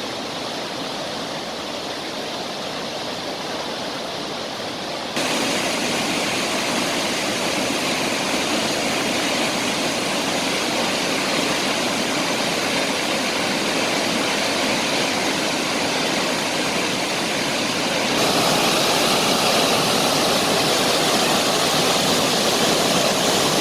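Roar of flood water pouring through the open spillway gates of a concrete dam, a steady dense rush that steps louder about five seconds in and again near the end.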